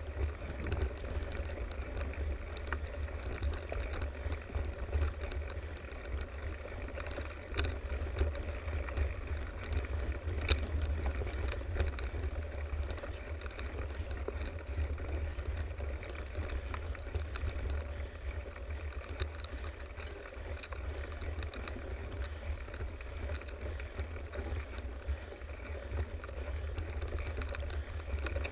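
Mountain bike rolling along a dirt forest trail, heard through an on-board camera: a steady low rumble of tyres and frame vibration with a rattling haze and a few sharper knocks.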